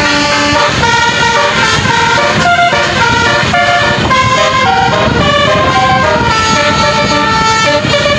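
Bus 'telolet basuri' musical air horn playing a melody, a run of held horn notes that change pitch every fraction of a second.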